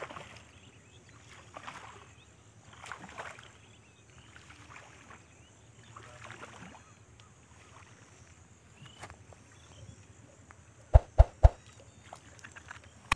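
Water splashing at the surface in soft bursts about every second and a half, as a hooked snakehead is pulled through the water on a frog lure. Three sharp knocks come close together near the end.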